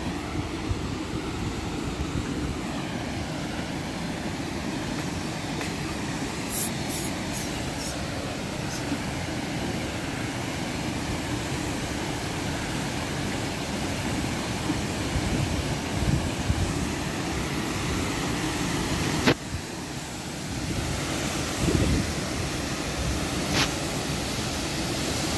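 Steady rush of a waterfall tumbling into a rocky pool, with wind buffeting the microphone. One sharp click about two thirds of the way through.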